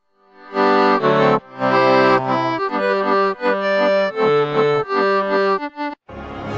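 A short accordion tune in a French style, a jingle of held notes and chords that starts about half a second in and breaks off just before the end, where a different sound begins.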